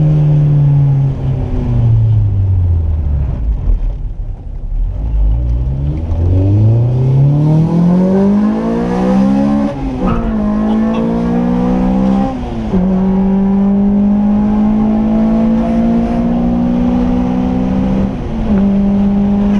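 Engine-swapped Honda Civic EM1 doing a hard pull through the gears. The engine note falls as the car slows at first, then climbs steeply. Three upshifts, about halfway through, a couple of seconds later and near the end, each drop the pitch briefly before it climbs again.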